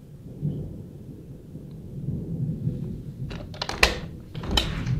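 Rolling thunder from a close thunderstorm: a low rumble that builds about half a second in and grows louder. A few sharp knocks come over it between about three and a half and five seconds in, the loudest near four seconds.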